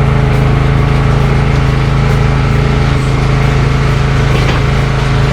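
Power sander running steadily on cured epoxy over oak, a loud unbroken motor hum with a faint grinding hiss on top.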